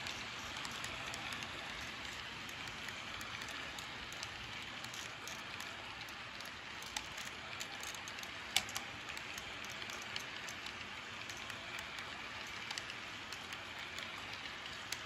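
HO scale model covered hopper cars rolling past on the track: a steady, rattling hiss of metal wheels with scattered clicks, one sharper click about halfway through.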